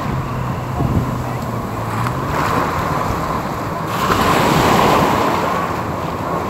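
Surf breaking and wind buffeting the microphone, with a jet ski's engine droning over the water through the first couple of seconds, its pitch rising slightly.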